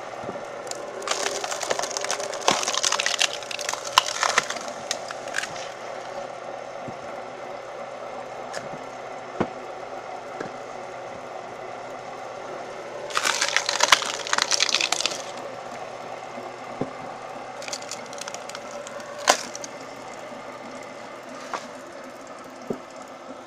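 Firewood splitting machine running steadily with an engine hum while logs are split, the wood cracking and splintering apart in three bursts, about a second in, around thirteen seconds in and near eighteen seconds in, with sharp cracks among them.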